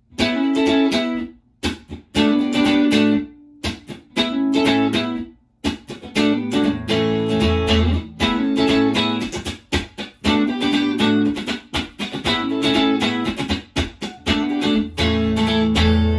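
Electric guitar playing the same short lick again and again, in pitched phrases of a second or two that open with sharp strums, broken by brief pauses. It is played for a comparison of the guitar's original pickups with newly fitted ones.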